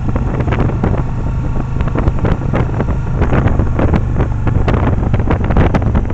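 Motorcycle engine running at road speed, a steady low drone, with wind buffeting the microphone in irregular crackling gusts.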